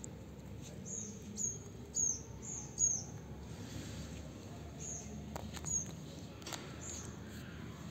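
A small bird calling in short, high, falling chirps: a quick run of them about a second in, then a few more spaced out later, with a few faint clicks in between.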